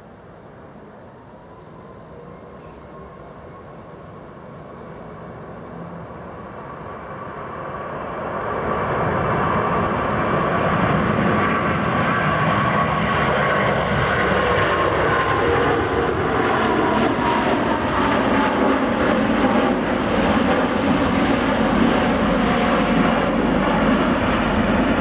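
Airbus A350-941's two Rolls-Royce Trent XWB turbofan engines spooling up for the go-around of a touch-and-go. A rising whine builds over the first eight or nine seconds into a loud, steady jet roar as the airliner climbs out, and its tones slide down in pitch in the second half as it passes.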